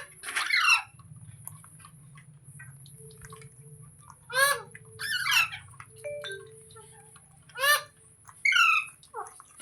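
Green ringneck parrot giving a series of loud, harsh screeching calls, about six in all, each sweeping down in pitch, with short gaps between them.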